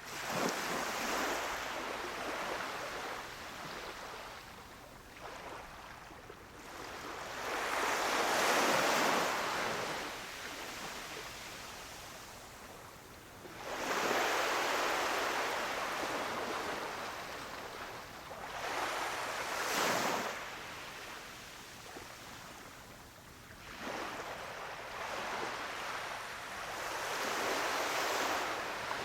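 Small waves breaking on a beach, a hiss of surf that swells and ebbs about five times, one surge every five or six seconds.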